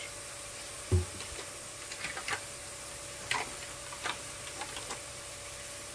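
Diced carrots and potatoes frying gently in oil in a metal pot over a low flame: occasional small crackles and pops, with a dull knock about a second in.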